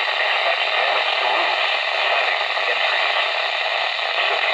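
Radio reception hiss and static, steady and fairly loud, with a faint voice underneath that is hard to make out.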